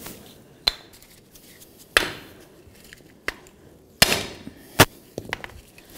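A hammer knocking on a nut threaded onto a rusted mounting stud, driving the seized stud out of a rear brake backing plate and its bracket. About five or six separate sharp knocks at uneven intervals, the hardest about two and four seconds in.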